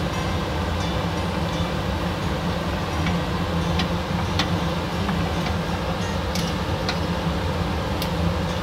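Pieces of kid goat frying in olive oil in a stainless-steel pot, a steady sizzle, over a steady low hum. A fork and a wooden spatula turn the meat, with several sharp clicks of metal against the pot.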